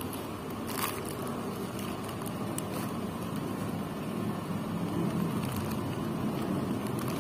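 Steady low background rumble with faint rustling of a cotton T-shirt being handled, and a light click about a second in.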